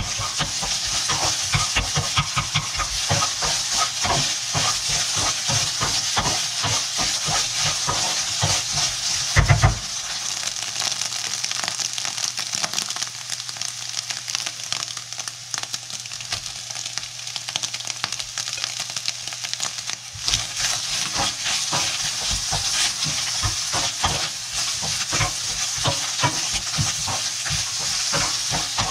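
Shrimp fried rice sizzling in a hot wok while a spatula stirs and tosses it, with rapid knocks and scrapes against the wok. One loud knock comes about a third of the way in, then there is a stretch of steady sizzling with little stirring before the rapid knocking starts again.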